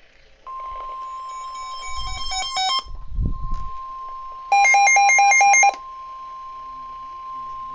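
Weather radio warning alarm tone: a steady high tone of about 1 kHz that starts about half a second in and heralds a new severe thunderstorm warning. Twice, around two seconds in and again near five seconds, a rapid electronic beeping sounds over it, the second time loudest. A dull thump comes around three seconds in.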